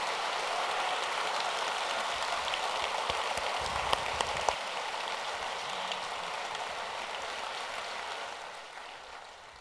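Large audience applauding steadily, dying away over the last second or two.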